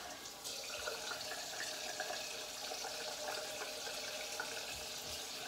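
Water tap running steadily into a bathroom sink.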